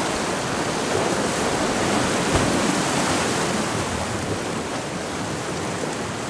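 Sea surf washing against the rocks, a steady rush of water that swells a little about two seconds in.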